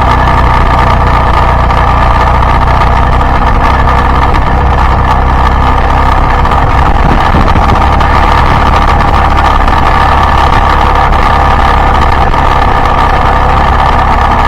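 Yamaha Byson motorcycle's single-cylinder engine running steadily while riding, with constant road noise.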